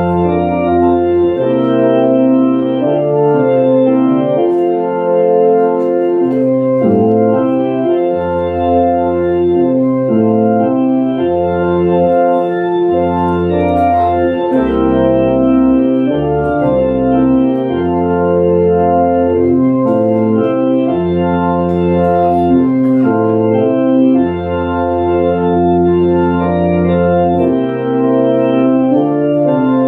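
Organ music: held chords over a slow-moving bass line, each bass note lasting a second or two.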